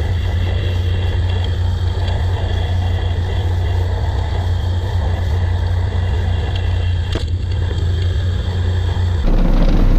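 Pressure washer running steadily, spraying soap. About nine seconds in the sound switches abruptly to a deeper, louder engine note.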